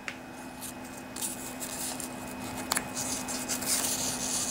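Sandpaper strip being handled and pressed around a crankshaft journal by hand, with patchy rustling and rubbing and a couple of light clicks. A steady faint hum runs underneath.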